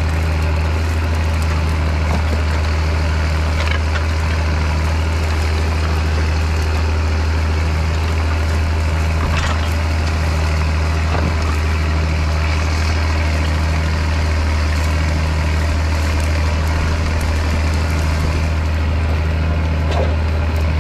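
International Harvester 5088 tractor's turbocharged six-cylinder diesel running steadily under load as it pulls a five-bottom moldboard plow through the soil.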